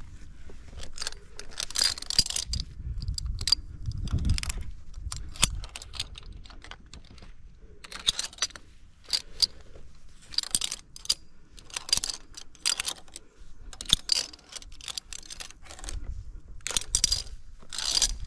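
Metal via ferrata gear, the lanyard's carabiners, jingling and clicking against each other in short bursts about once a second, with scuffing movement between them.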